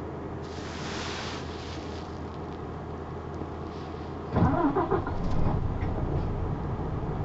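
Isuzu PKG-LV234N2 city bus: a short air hiss, then about four seconds in its six-cylinder diesel engine starts with a quick rise in pitch as it catches, and settles to a steady idle.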